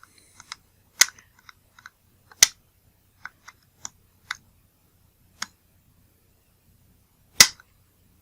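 Sharp clicks and taps of small metal lens parts and tools being handled while working the front optical assembly loose from a camera lens, the loudest about a second in, about two and a half seconds in and a little before the end, with lighter ticks between.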